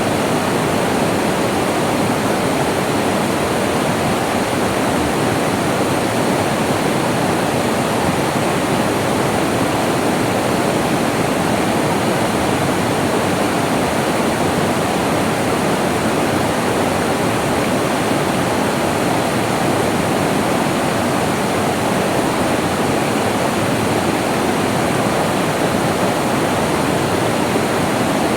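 Flowing water rushing steadily, a loud, even, unbroken wash of sound.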